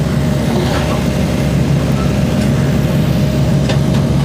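A SANY mini excavator's diesel engine running steadily at an even speed, a constant low drone with no revving.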